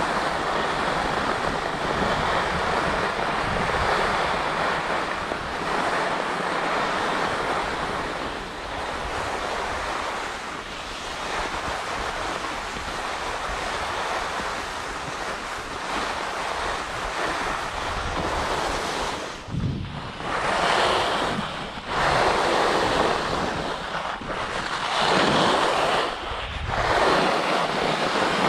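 Wind rushing over the microphone of a moving skier, with the steady hiss and scrape of skis running on groomed snow. Over the last ten seconds the sound swells and drops every couple of seconds as the skier carves turns.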